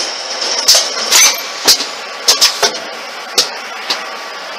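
Automatic rivet insertion machine running: its air-driven stations and indexing table make about eight sharp metallic clacks at uneven intervals over a steady hiss.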